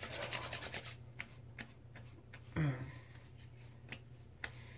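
Palms rubbing together, wet with a runny post-shave balm: a rapid swishing in the first second. Then come a few light ticks and a brief soft sound as the balm is pressed onto the face.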